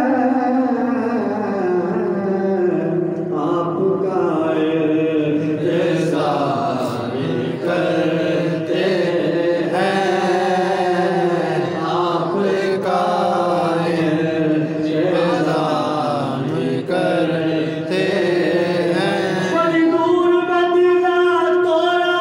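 A man singing a naat, a devotional praise song, unaccompanied into a microphone, drawing out long, wavering held notes in a chant-like style.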